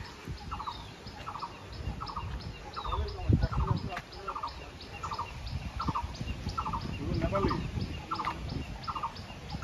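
An animal's short, pulsed call repeated steadily, nearly twice a second, over low rumbling noise.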